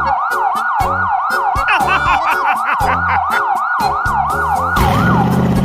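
Fast wailing emergency-vehicle siren sweeping up and down about three times a second over a rhythmic beat. Near the end the siren stops and a steady low hum takes over.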